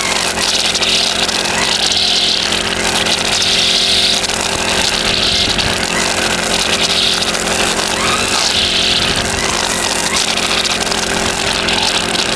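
Backpack brush cutter's engine running at a steady set throttle, its nylon trimmer line cutting grass: a high swishing hiss swells and fades about every one and a half to two seconds as the head sweeps through the grass.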